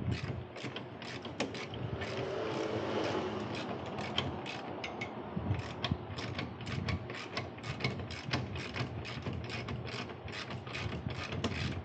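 Hand ratchet wrench clicking in short, irregular runs of several clicks a second as a suspension bolt is turned, with a stretch of steadier noise about two seconds in.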